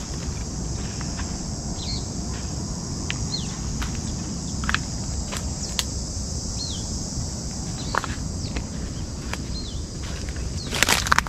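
A steady high insect drone with a handful of short, downward-sliding bird chirps and scattered footsteps on the ground. Near the end comes a louder burst of footsteps.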